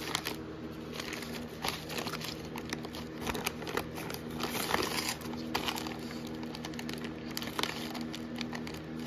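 Clear plastic parts bags holding bolts crinkling irregularly as gloved hands handle and turn them over. A steady low hum runs underneath.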